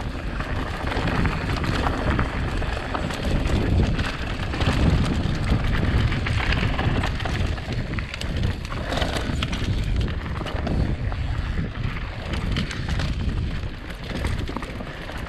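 Wind rushing over the microphone as a mountain bike rolls over a dirt trail, with scattered clicks and rattles from the bike.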